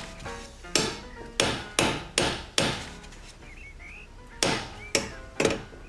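Hammer blows from a workman under a kitchen sink unit: five sharp strikes in quick succession, a pause of about two seconds, then three more, each with a short ring.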